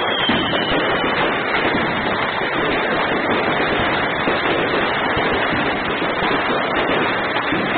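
Many fireworks going off at once, a dense, continuous crackling and popping of rockets and firecrackers with no single bang standing out. A short whistle sounds at the very start.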